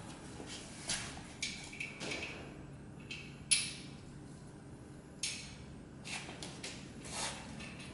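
Scattered clicks and clinks of hand work on the fittings of a heavy equatorial telescope mount, with one sharp click about three and a half seconds in and a brief rasp about two seconds later.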